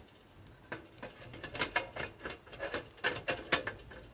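Thin stainless-steel parts of a folding wood-burning camp stove clicking and tapping against each other as a loose front guard plate is handled and fitted onto it: an irregular string of light clicks that comes thicker from about a second in.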